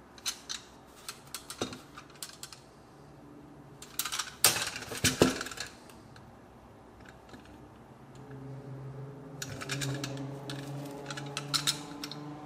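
Light clicks and knocks of a metal toy truck being handled and turned over in gloved hands, its wheels and body tapping against the wooden bench, with a louder burst of clatter and rustle about four to five seconds in. A low steady hum comes in about eight seconds in under more clicks.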